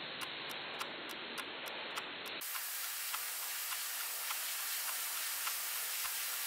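A steady hiss with soft, evenly spaced ticks, a few a second, like a clock ticking. About two and a half seconds in, the hiss turns brighter and fuller, and the ticks carry on.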